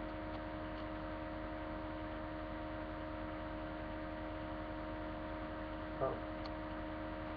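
Steady electrical hum with hiss, picked up by a webcam microphone, with a brief short voice sound about six seconds in.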